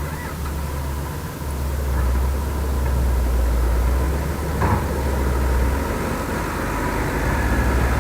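Heavy diesel engine of an excavator or dump truck running steadily, with a single metallic clank about halfway through. The machine noise grows busier over the last couple of seconds.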